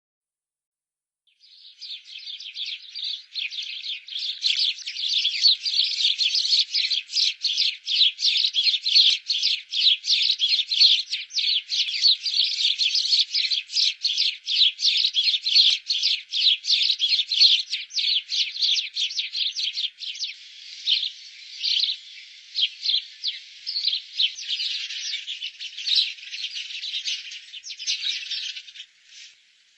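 Sparrows chirping in a rapid, dense run of short high chirps, starting about a second and a half in. Past the middle the chirps thin out into more spaced calls.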